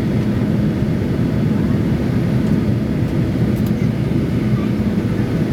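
Steady low rumble of engine and airflow noise inside a Boeing 737-800's cabin during the descent.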